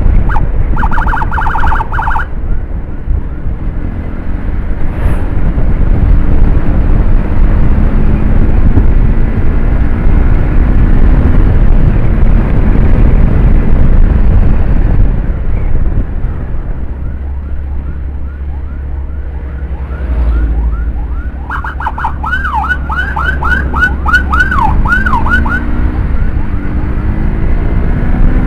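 Electronic emergency siren sounding in short bursts over the steady wind and road rumble of a moving motorcycle. There is a brief warble about a second in, and a fast yelp sweeping up and down, about three sweeps a second, that grows loud near the end.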